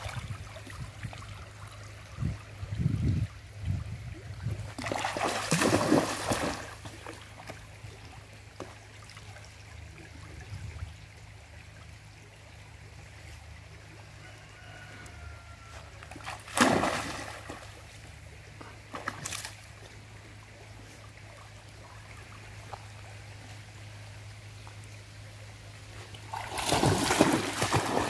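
Dog wading through a shallow stream, its legs splashing the water in several bursts with quieter stretches of trickling water between them. The loudest splashing comes near the end, as the dog dashes through the water.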